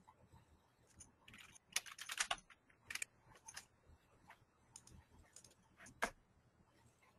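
Computer keyboard and clicks tapping irregularly: a quick run of keystrokes about two seconds in, a few scattered taps, and one sharp click about six seconds in.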